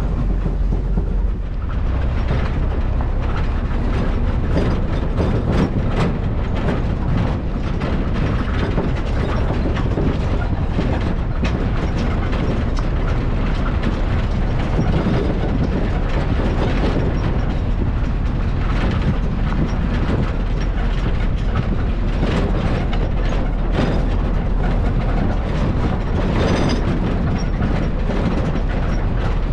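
A vehicle in motion on a rough road: a steady low rumble with continual rattling and knocking throughout.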